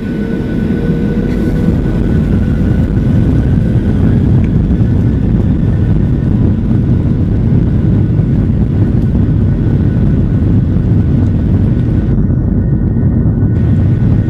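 Jet airliner's engines at takeoff power, heard inside the cabin over the wing: a loud, steady rumble that builds over the first couple of seconds as the aircraft starts its takeoff roll.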